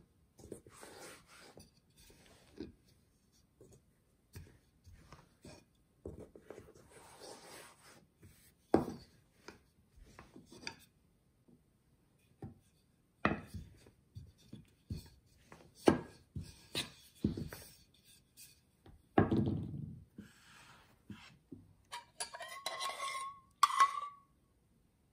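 Wooden rolling pin rolling dough on a bamboo cutting board: soft rubbing broken by scattered sharp knocks of the pin on the board. Near the end a metal spoon clinks and rings against a stainless steel bowl.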